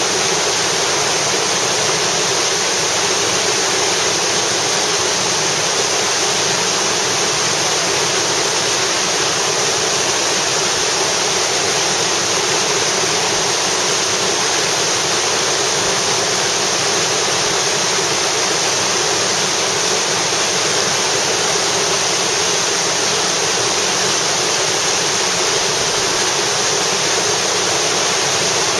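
Whitewater of Wild Sheep Rapid on the Snake River rushing loudly and steadily, close at hand.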